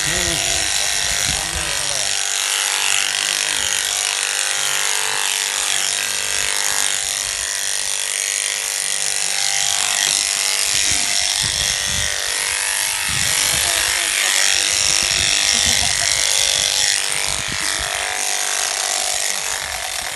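IIT Delhi-built electric sheep-shearing handpiece running steadily, its comb and cutter clipping through a sheep's fleece with a buzzing hum.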